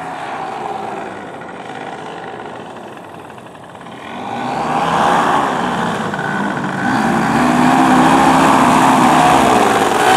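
Simonini two-stroke paramotor engine and propeller running as the paramotor flies low past. It grows much louder about four seconds in as it closes in, and its pitch bends as it goes by.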